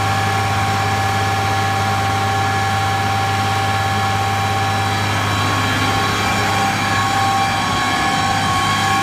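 Ford TW-15 tractor's 6.6-litre six-cylinder diesel running steadily while turning a PTO dynamometer, with a deep, even hum and a steady whine over it.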